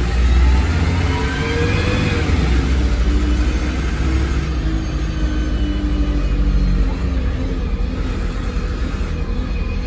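A 2009 MAN 16.240 bus's six-cylinder diesel engine and Voith automatic gearbox heard from inside the cabin as the bus pulls away. The pitch rises over the first couple of seconds and then holds steady under a constant low rumble, which eases slightly near the end.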